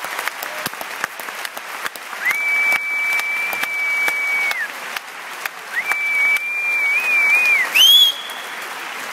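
Audience applauding, with loud whistling from someone in the crowd: two long, high held whistles, the second wavering, then a short rising whistle near the end.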